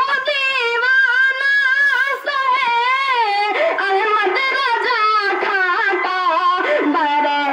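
A boy singing solo into a microphone, unaccompanied: one high voice holding long ornamented notes that waver and turn in pitch, in the style of devotional verse sung at an Islamic gathering.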